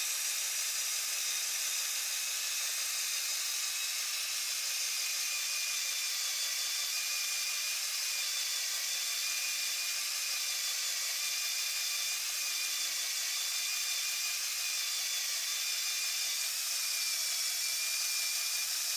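The LEGO 8110 Unimog's M motor driving the winch through its gearing, running steadily with a high whine as it reels in the winch string under load. The winch is not strong enough to pull the truck up.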